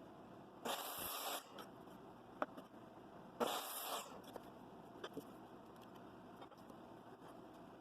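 Two short hissing scrapes, about three seconds apart, with a few faint ticks between them.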